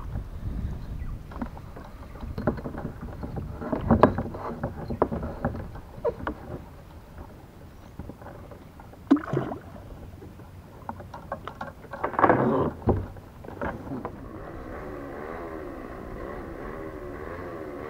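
Kayak paddling: paddle strokes with water splashes and occasional knocks against the hull, loudest about 4, 9 and 12 seconds in. About two-thirds of the way through the sound changes abruptly to a steady, warbling drone of a distant motor.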